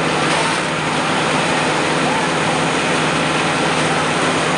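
Steady running of an idling engine under a dense rushing noise, with faint voices in the background.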